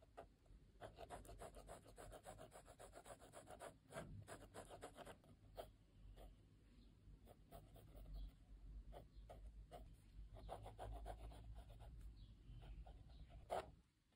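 Mechanical pencil with 2B lead scratching on sketchbook paper in quick back-and-forth hatching strokes, faint and coming in runs of rapid strokes. One sharper tick near the end.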